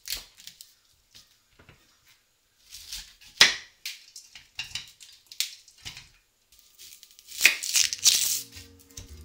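Kitchen knife and hands working cauliflower and a whole onion on a wooden cutting board: a series of crisp cracks and crunches, the loudest about three and a half seconds in, and a dense crunching stretch near the end as the knife goes into the onion and its dry skin. Music begins just before the end.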